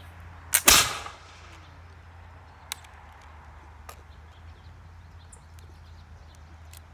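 Flintlock musket's lock snapping as the trigger is pulled, followed at once by a short burst of burning powder that dies away within half a second. The musket misfires, something that happens in damp weather. A few faint clicks of the lock being handled follow.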